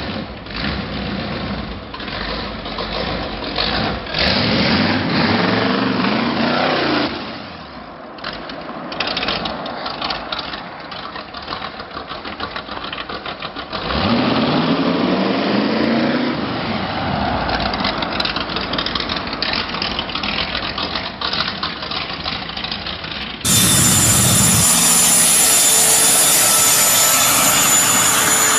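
A custom trike's engine running and revving hard twice as it pulls away and drives by. About 23 seconds in, the sound changes abruptly to a trike's helicopter jet engine running with a steady high whine.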